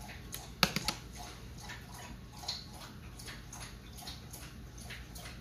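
A dog lapping water from its bowl: a steady run of quick, wet laps, about four or five a second, with a few sharper clicks about half a second in.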